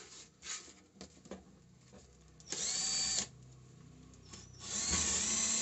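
A 12-volt cordless drill whirring as it bores a hole into a wooden board: a short run of under a second about two and a half seconds in, then a longer, louder run starting near the end. A few light handling clicks come before it.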